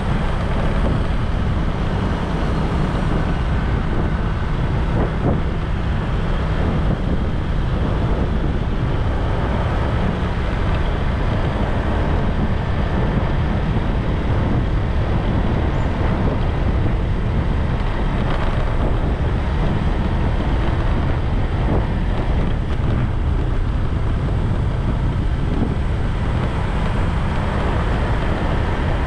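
Steady low rumble of wind on the microphone and road noise from a moving bike, unbroken throughout.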